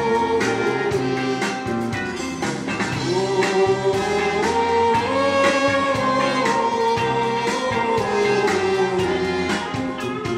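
Music with a steady beat and long held melody notes, cutting off suddenly at the very end.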